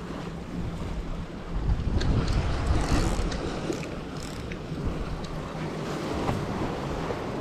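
Sea waves washing against the concrete blocks of a breakwater, with wind buffeting the microphone, swelling louder about two seconds in. A few light clicks come over it.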